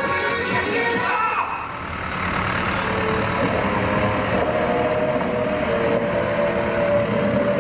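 Music playing, cut off about a second and a half in, then a John Deere 2040 farm tractor's diesel engine running steadily as it tows a parade float.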